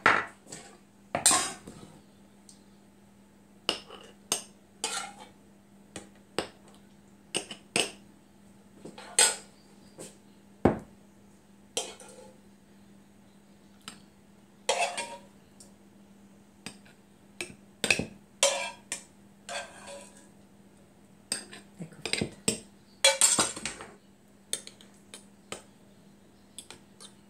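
Metal ladle and fork clinking, knocking and scraping against a frying pan and glass jars while sautéed green beans are spooned and pressed into the jars; irregular clinks, sometimes several in quick succession, over a faint steady low hum.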